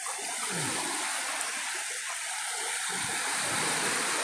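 Shallow seawater sloshing and trickling as a hand moves through it, over a steady rushing hiss, with two low swishes about half a second and three seconds in.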